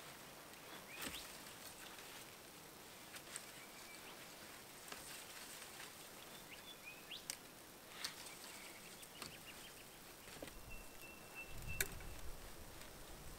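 Wooden stick and branch being handled: scattered sharp clicks and knocks as a cut stick is wedged upright under a tree branch as a brace, the loudest knock with a dull thud near the end. A bird's thin whistle sounds just before it.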